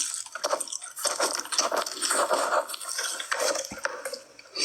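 Close-up mukbang eating sounds: food being crunched and chewed with many irregular short clicks and crackles.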